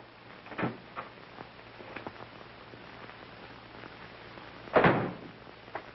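Steady low hiss of an old film soundtrack, with a soft short sound just after the start and a louder dull thud about five seconds in.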